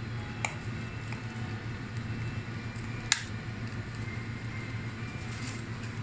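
Self-serve convenience-store latte machine running with a steady low hum as it dispenses milk over ice into a plastic cup, with two short sharp clicks, about half a second and three seconds in.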